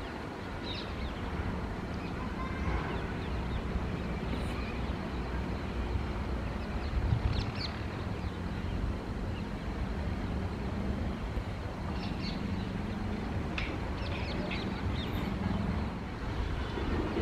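Steady low rumble of a WAG-12 electric locomotive and its double-stack container train approaching along the track, with a few short high chirps above it.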